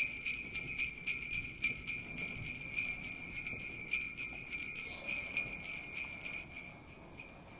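Sleigh bells jingling in a steady shaken rhythm, several shakes a second, fading out near the end.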